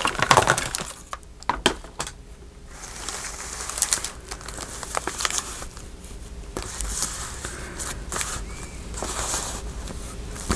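Paper rustling and crinkling, with many light clicks and taps, as pieces of paper ephemera are handled and shifted about on a journal page.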